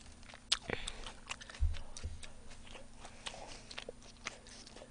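Close-miked chewing and biting of sauce-coated fried chicken: scattered small wet clicks and crunches, with a soft low thump about a second and a half in.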